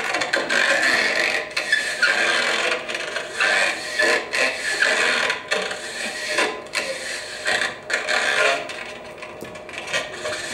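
Long rubber modelling balloons being rubbed and handled, giving an uneven run of squeaking, scraping strokes, heard through a hall's playback speakers.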